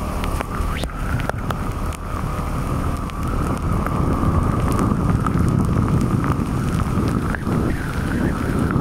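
Wind buffeting the microphone on a moving motorbike, over the steady whine of the bike's engine, with a few sharp clicks in the first two seconds.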